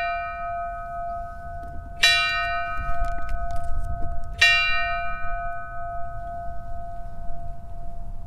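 A memorial bell tolling for a fallen deputy. It is still ringing from one stroke, then is struck twice more, about two seconds and four and a half seconds in. Each stroke rings on with a clear, steady tone that fades slowly.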